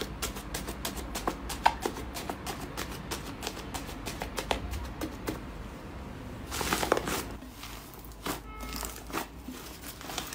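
Fingers poking and pressing into a thick, puffy slime, giving rapid crackling and popping clicks several times a second. A louder crinkly squish comes about six and a half seconds in, as the slime is pressed down and gathered up.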